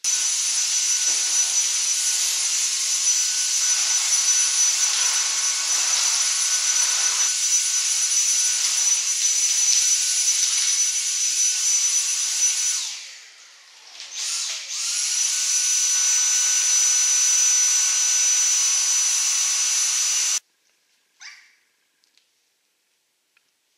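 Dyson stick vacuum cleaner running with a steady high-pitched whine. About 13 seconds in it winds down, then spins back up to full speed, and it cuts off abruptly a few seconds before the end.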